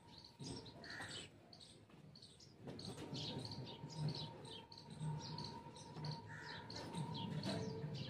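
Small birds chirping in quick, repeated short calls, with faint rustling of cloth and shuffling footsteps underneath.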